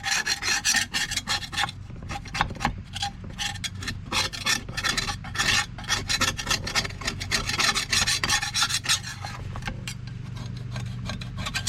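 Paint scraper scraping chemically softened, thick paint off a metal tool head in quick, repeated rasping strokes, several a second, thinning out near the end. The paint has been loosened by a citrus-based stripper.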